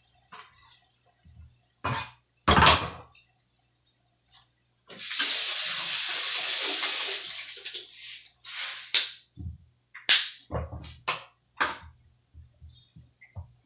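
A wall tap runs into a steel sink for about two seconds while food is rinsed by hand under it. Before and after come a few sharp knocks and splashes as the food is handled.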